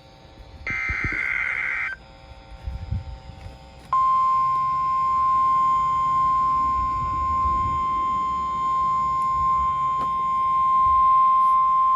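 An emergency alert broadcast: about a second in, a short buzzing digital data burst ends the alert header, and about four seconds in the NOAA Weather Radio warning alarm sounds as one steady, unbroken beep. This marks the weekly test of the weather radio warning alarm.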